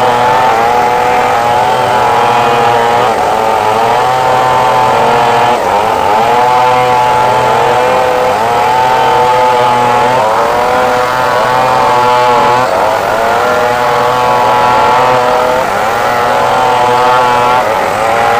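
Two Stihl two-stroke chainsaws running at high revs while ripping a large timber lengthwise into boards. One saw's pitch sags and recovers every couple of seconds as the chain bites into the wood under load. The other runs at a steadier pitch underneath.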